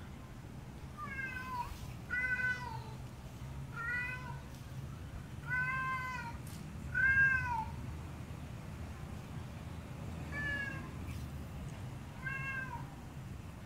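Male stray cat meowing loudly and repeatedly in courtship, calling to a female cat: seven drawn-out calls, each under a second and bending up then down in pitch, with a longer pause in the middle. The loudest call comes about seven seconds in, over a steady low hum.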